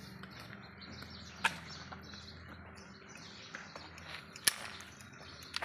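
Small birds chirping in the background, with two sharp clicks: one about a second and a half in, and a louder one about three seconds later.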